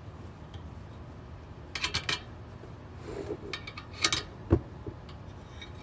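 Metal clinks and sharp taps of a crescent wrench working a seized spoke nipple loose in a motorcycle wheel rim: a quick cluster of clinks about two seconds in, then a few more knocks around four seconds in.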